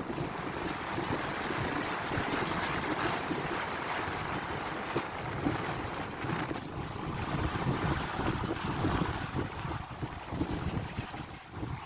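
Wind buffeting the microphone on a sailboat under way, with water rushing along the hull; gusty, uneven rumble throughout.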